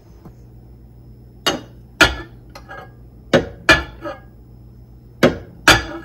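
A drinking glass of water knocking against the inside of a small countertop microwave, about seven sharp knocks in pairs with a short glassy ring, as it is pushed in and will not fit.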